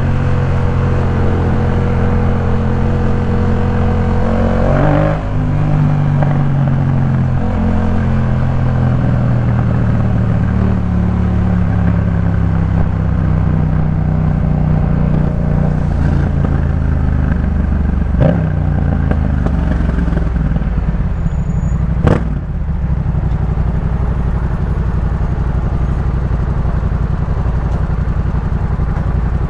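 Yamaha MT-07's 689 cc parallel-twin engine running through a Jeskap K4 full exhaust while the bike is ridden, its note rising and falling gently. There are three short sharp clacks, about five seconds in, near two-thirds of the way through, and shortly after.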